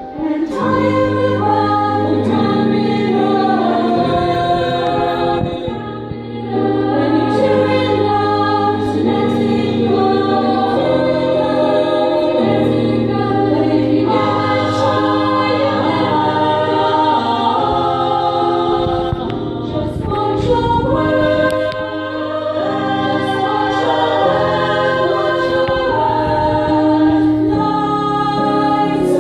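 Women's choir singing a song in harmony, with a short lull about six seconds in.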